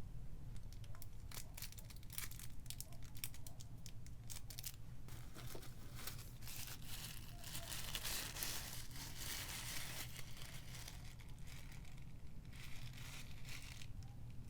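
Packaging of a boxed collectible figure being handled and unwrapped: crinkling and tearing, busiest about seven to ten seconds in, with a steady low hum underneath.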